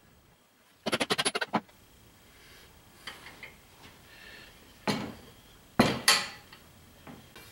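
Steel leaf spring leaves and C-clamps being handled on a workbench: a quick rattling run of metal clicks about a second in, then two louder metal clanks around five and six seconds.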